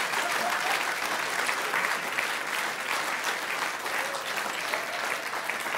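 Studio audience applauding steadily after a punchline, a dense crackle of many hands clapping, easing slightly near the end.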